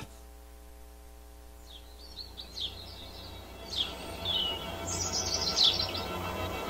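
Soft held chords and a low drone in the music, with birdsong laid over them: short, falling chirps begin about two seconds in and come more often toward the end.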